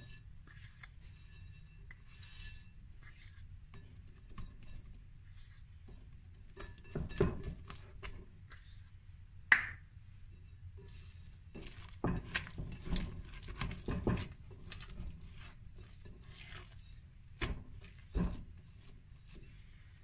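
Hands working soft, sticky yeast dough in a glass mixing bowl, with dull knocks of the bowl on its wooden board in several clusters and a sharp glassy clink about halfway through.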